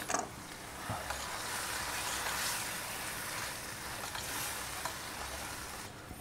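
Swiss chard sizzling in a stainless steel skillet as a spoon stirs it, with a few light taps and scrapes of the spoon against the pan.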